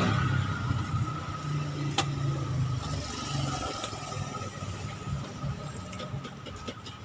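A motor-like hum with a thin steady whine, fading away, with one sharp click about two seconds in and a few light clicks near the end.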